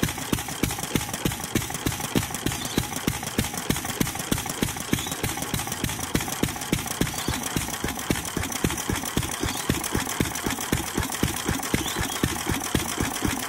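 1926 International Harvester Type M 3 HP single-cylinder hit-and-miss stationary engine running steadily on a petrol/kerosene mix, with a regular beat of sharp knocks and clatter.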